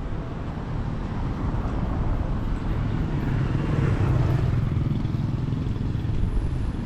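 Traffic noise: a motor vehicle's engine hum grows louder over the middle seconds as it passes.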